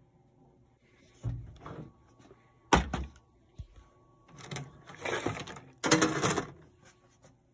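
Bundled insulated copper wire and a plastic bag being handled. A dull thud comes about a second in, a sharp knock near three seconds, and then two longer bouts of rustling and crinkling.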